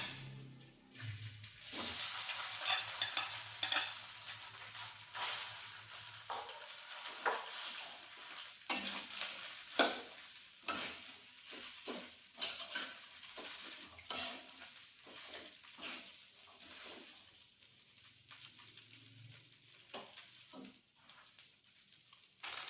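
Cooked rice frying in hot oil in a pan, sizzling, while a spatula stirs it with repeated scraping strokes against the pan. A sharp knock comes at the very start, and the sizzle and stirring die down over the last third.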